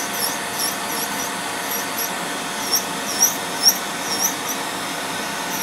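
Electric nail drill running with a steady hum as its burr grinds down thick, fungus-thickened toenails to thin them. Repeated short high squeaks come and go over the hum.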